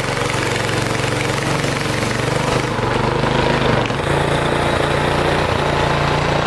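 Small engine of a wooden river longboat running steadily under way, with water rushing along the hull.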